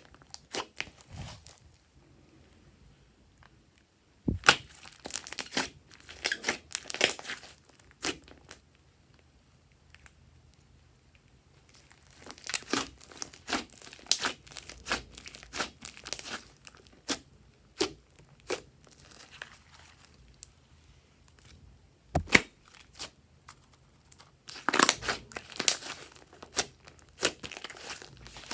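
Glossy slime being handled: sticky pops, clicks and crackles come in several bursts of a few seconds each, with short quiet pauses between them.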